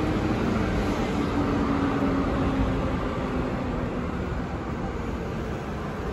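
City street traffic noise, with a motor vehicle passing close by: its engine hum sinks slightly in pitch and fades after the middle.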